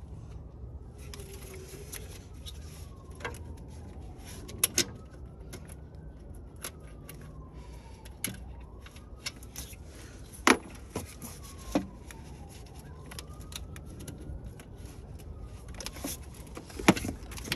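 Hand tools and engine parts clicking and clinking during repair work, with a few sharper metallic knocks scattered through, the loudest about ten and seventeen seconds in.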